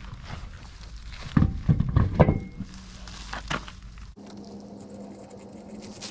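A series of sharp knocks and clatters, loudest about a second and a half to two and a half seconds in, then an abrupt change to a quieter steady hum.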